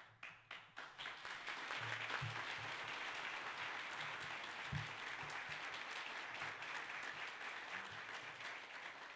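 Audience applauding: many hands clapping, building over the first second, holding steady, and beginning to thin out near the end.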